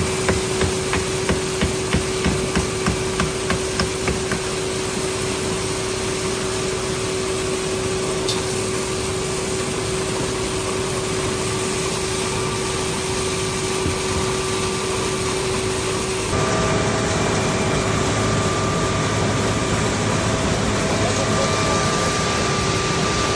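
Concrete mixer truck running with a steady hum as wet concrete slides down its chute. For the first few seconds there is a regular knocking, about two knocks a second.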